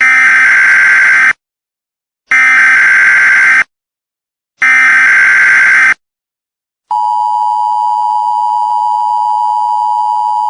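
Emergency Alert System tones for a tornado warning: three bursts of SAME header data, each about a second and a quarter long with a pause between. About 7 seconds in, the steady two-tone EAS attention signal starts.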